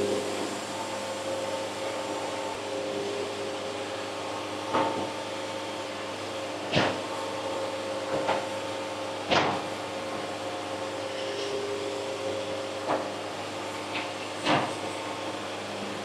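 Portable band sawmill running with a steady, even hum. About seven sharp knocks come at uneven intervals through the middle and later part as the log is shifted and clamped on the mill bed.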